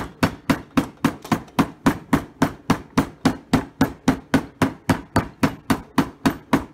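A big hammer striking a freshly glued rubber top lift on a shoe heel mounted on a cobbler's last, seating the heel onto its base while the glue is wet. Even, rapid blows, about four a second.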